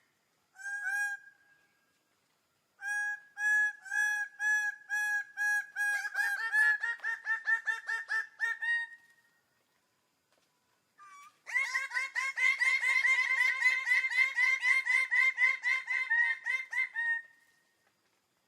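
Bird-of-paradise (cendrawasih) calling in loud series of repeated, evenly spaced notes: a short call first, then a run of notes that quickens toward its end, and after a pause a longer, faster run of notes.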